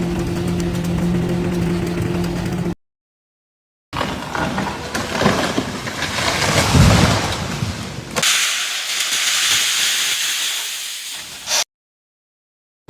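Separate stretches of machine noise with short silent breaks between them: first a steady mechanical hum, then a rough rumbling clatter, then a loud steady hiss that cuts off suddenly.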